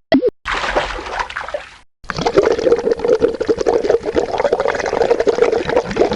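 Separate water sound effects in quick succession: first a brief droplet plop with a sliding pitch, then a short spell of splashing water that fades away. From about two seconds in, water pours steadily into a container.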